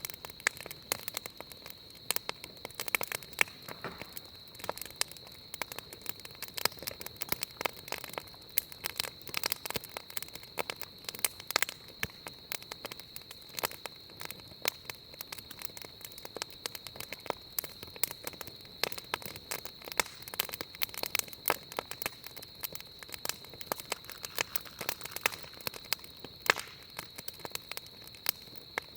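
Wood fire burning with dense, irregular crackling and popping, over a thin, steady high-pitched whistle that never lets up: the 'dragon's voice' of the burning wood, typical of steam escaping from the wood as it burns.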